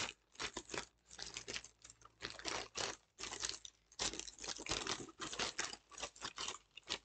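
Plastic packaging bag being handled and pulled open by hand, crinkling and tearing in quick irregular rustles with short pauses.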